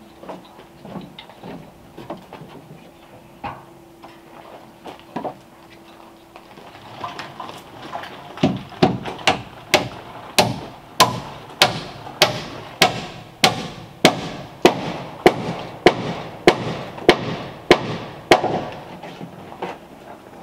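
A hammer striking in a steady, even rhythm of sharp blows, a little under two a second, for about ten seconds starting some eight seconds in. Before that there are only scattered light knocks and taps over a faint steady hum.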